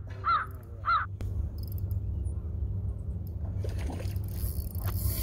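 A bird calls twice in quick succession near the start, each call a short note rising then falling in pitch. About four seconds in comes a hiss of splashing water as the hooked yellowtail kingfish thrashes at the surface, over a steady low rumble.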